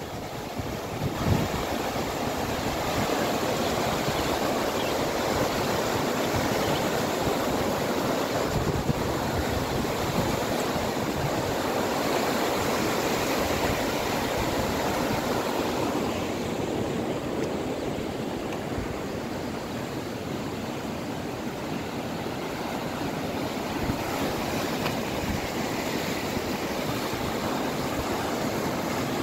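Steady rushing and churning of a muddy river in flood, its fast brown water tumbling over submerged bushes and shallows.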